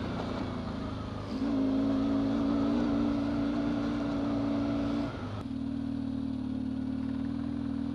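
Yamaha dual-sport motorcycle engine running under way on a dirt track, heard from the rider's helmet: it picks up with more throttle about a second in, holds a steady note, and eases to a lighter, steady note about five seconds in, with wind noise throughout.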